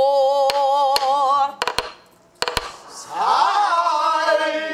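A woman sings a long note with a strong vibrato on the pansori phrase '살려주오', broken off by a few sharp strokes of a stick on a buk barrel drum. From about three seconds in, a group of voices sings the phrase back.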